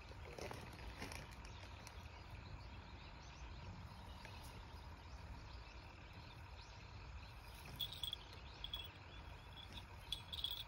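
Faint outdoor field ambience: a low steady rumble with insects chirping in short high bursts about eight seconds in and again near the end. A brief rustle comes about half a second in.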